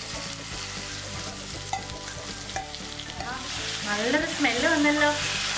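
Steel spoon stirring and scraping chicken thoran around a steel kadai, the food sizzling as it fries. A melody with gliding pitch comes in about halfway through and grows louder than the stirring.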